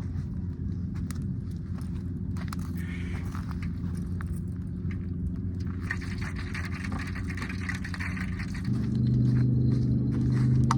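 A motor engine running steadily with a low hum, growing louder about nine seconds in. Scattered scrapes and clicks sound over it.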